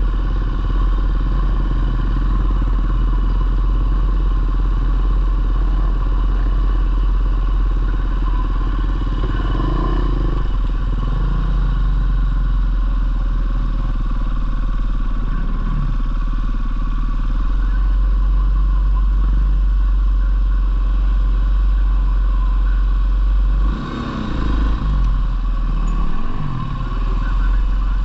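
Four-stroke dirt bike engine running while riding, its revs rising and falling in several swells, most clearly in the middle and again near the end, with a short drop-off about three-quarters of the way through.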